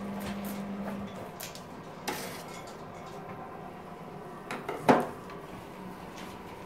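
A knife scraping scales off a perch in short strokes, with a low steady hum that stops about a second in. About five seconds in comes a single sharp clatter of hard things knocked on the table, the loudest sound.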